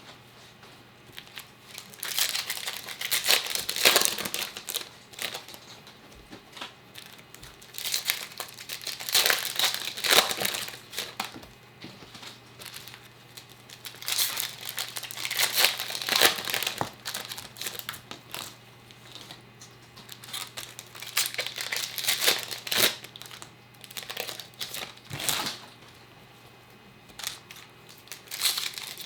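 Trading-card pack wrappers crinkling and tearing as packs are opened by hand, in bursts of a few seconds with quieter gaps between them.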